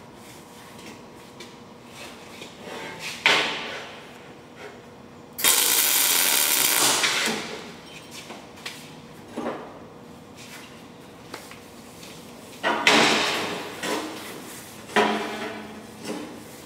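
MIG welder tack-welding a steel sheet-metal box: one crackling, hissing weld lasting about two seconds a few seconds in, with several shorter sudden bursts or knocks on the steel later on.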